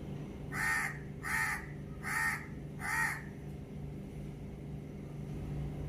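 A crow cawing four times in quick succession, the calls evenly spaced a little under a second apart.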